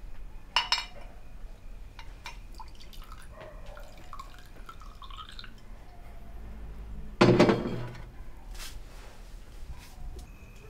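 Glass bottles and a drinking glass clinking as a drink is poured into the glass, with a sharp clink about half a second in and a louder knock about seven seconds in.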